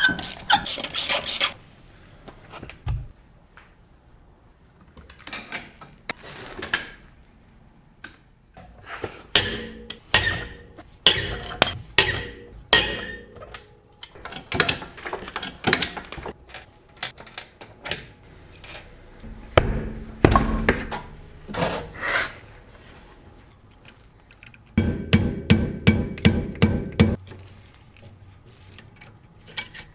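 Hand tools clanking and knocking against metal brake parts, with a low thud about two-thirds of the way in and a quick run of about eight heavier knocks, roughly four a second, near the end.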